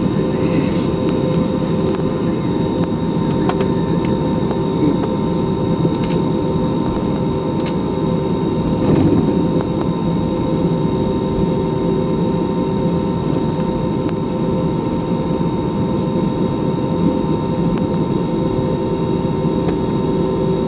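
Jet airliner cabin noise while taxiing before takeoff: the engines and cabin air running as a steady hum with a constant whine, and a few faint knocks now and then.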